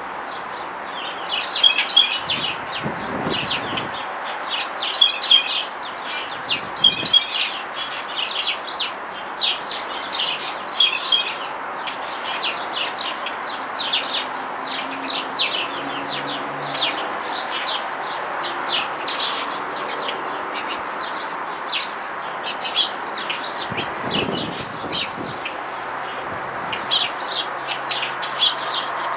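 Songbirds chirping in quick, repeated bursts over a steady background hiss.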